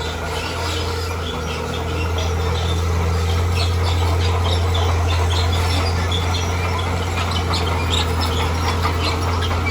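Heavy earthmoving machine running steadily with a deep drone that grows a little louder over the first two seconds, with many short high-pitched squeaks and chirps over it.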